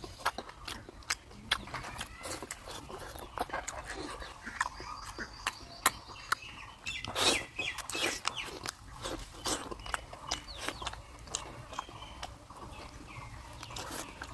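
Close-up eating sounds of pork curry: chewing with many sharp mouth clicks and a few louder crunches, along with faint high animal calls in the background.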